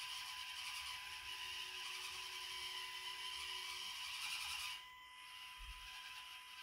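Axial SCX24 mini crawler's small electric motor and gear train whining as it strains up a steep ramp. The whine drops away abruptly about five seconds in, leaving a fainter steady tone.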